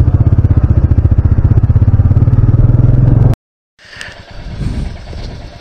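Royal Enfield motorcycle engine running with an even pulsing beat, about a dozen beats a second. It cuts off abruptly about three and a half seconds in, and a quieter street sound follows.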